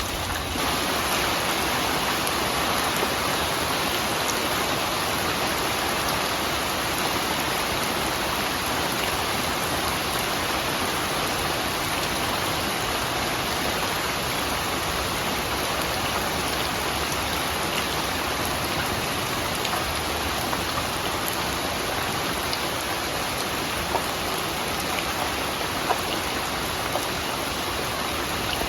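Steady, heavy rain falling and pattering on surfaces, with a couple of louder drop taps near the end.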